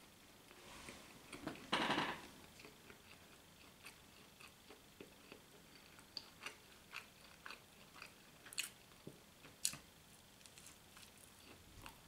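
Quiet chewing of a bread, butter and sausage sandwich with the mouth closed. Short sharp mouth clicks are scattered throughout, with one louder noisy burst about two seconds in.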